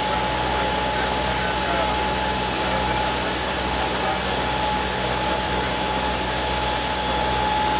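A steady engine drone with an even low hum and a thin, steady whine above it.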